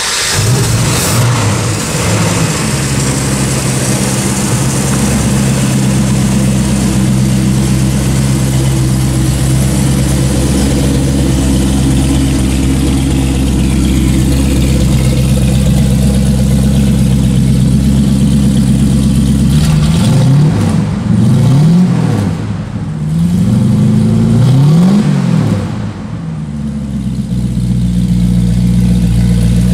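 1969 Shelby GT500's 428 Cobra Jet big-block V8 idling steadily. About twenty seconds in it is revved three times, then drops back to idle.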